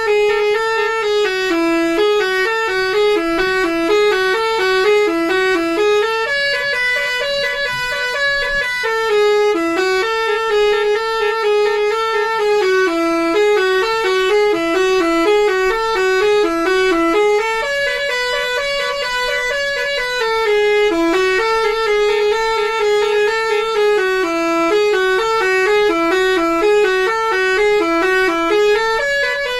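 Telolet basuri multi-tone musical bus horn playing a repeating melody, notes stepping up and down without a break.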